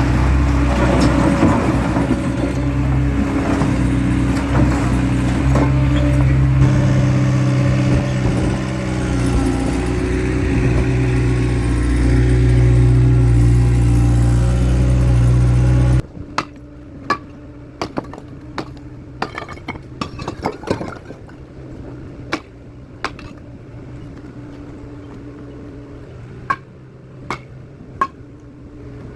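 Skid steer engine running steadily, loud and close, then cutting off suddenly a little over halfway through. A quieter stretch follows with scattered sharp clicks and knocks.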